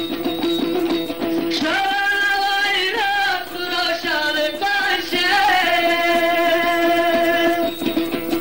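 Afghan folk song: a male voice sings a long, ornamented Persian-language melody over a steady drone and a plucked string instrument. The voice enters about one and a half seconds in and stops near the end, leaving the plucked strings.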